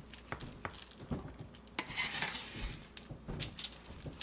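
Hands pressing and shaping macaroni and cheese on parchment paper in a metal sheet pan. The paper crinkles and the pan knocks lightly now and then, with a brief rustle about two seconds in.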